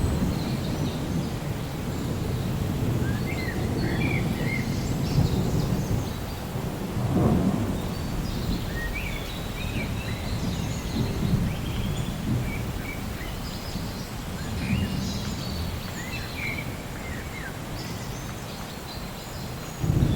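Thunderstorm: a low rolling rumble of thunder over steady rain, swelling briefly about seven seconds in and again near the end, with short high chirps scattered through it.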